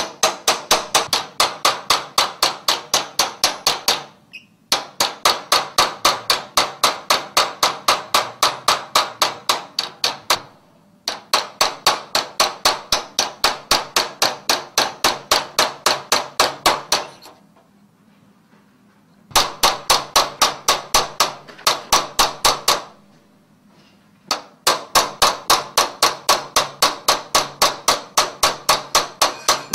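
Hand hammer rapidly striking a cold chisel that cuts sheet metal along a traced outline: sharp metallic ringing taps, about five or six a second, in runs of several seconds broken by short pauses.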